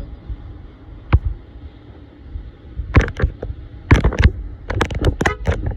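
A run of sharp clicks and knocks: one about a second in, then three quick clusters near the end, over a steady low rumble.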